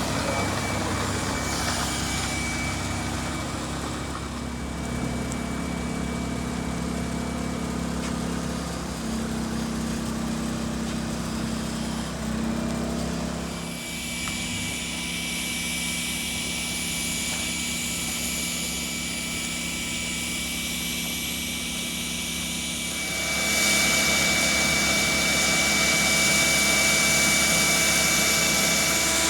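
A motor running steadily, with several held tones. The sound changes about 14 s in, then grows louder with added hiss about 23 s in.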